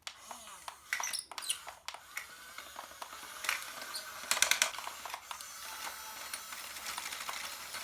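Mini RC excavator and bulldozer at work: small plastic clicks, knocks and scraping over a faint hiss. The loudest moment is a quick cluster of rattling clicks about four and a half seconds in.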